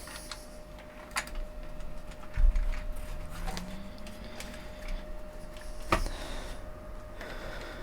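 Small clicks and knocks from equipment being handled on a workbench, with a dull thump a couple of seconds in and a faint steady whine underneath.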